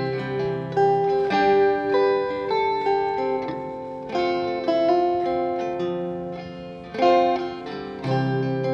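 A solo steel-string acoustic guitar playing picked notes and chords that ring out and fade, with a strong new attack about seven seconds in.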